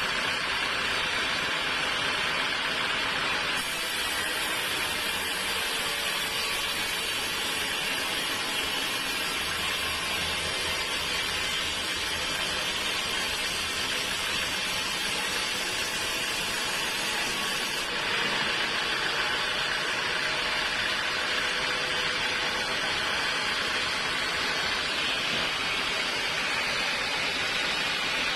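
Sawmill machinery running, a dense, steady noise with no breaks. Its tone changes abruptly at about 3.5 s and again at about 18 s.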